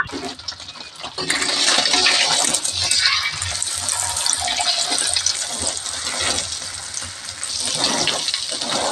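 Beaten egg frying in hot oil in a wok as an omelette, with a steady sizzle. Near the end a spatula works the omelette in the pan.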